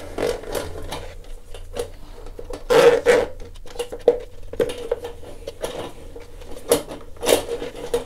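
Hand drum auger's steel cable rattling and scraping against the metal bathtub drain as it is worked through the pipe. Irregular clicks and scrapes, with louder rasps about three seconds in and near the end.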